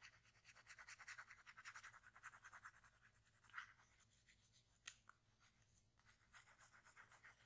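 Pencil scratching on notepad paper in quick back-and-forth strokes, stronger for the first three seconds and softer after.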